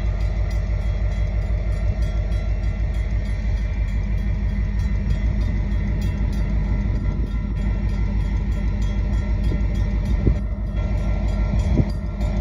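Long freight train of covered hopper cars rolling past: a loud, steady rumble with wheel clatter, and two sharper clunks near the end.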